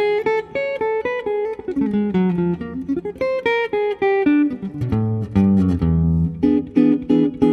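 Instrumental music: a guitar plucking a quick run of notes over a few longer low bass notes.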